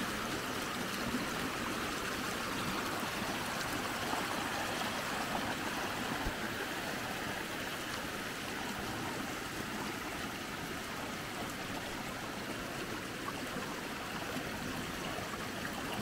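Muddy water from a rain-swollen creek rushing steadily out of a pipe through a small stone dam and splashing over rocks below.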